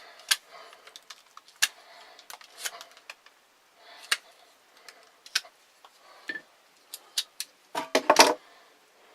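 Clicks and knocks of wooden pieces and tools being handled and set down on a table, scattered and irregular, with a short rattling clatter near the end.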